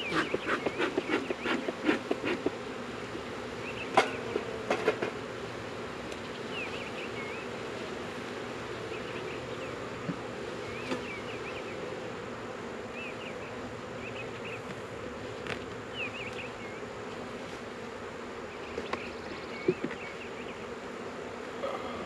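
Honeybees buzzing steadily around an opened Langstroth hive. In the first couple of seconds the smoker's bellows puff rapidly, and now and then a wooden hive box or frame knocks as it is handled.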